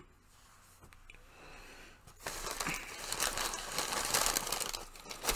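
Paper fast-food bag crinkling and rustling as it is handled, starting about two seconds in and lasting about three seconds.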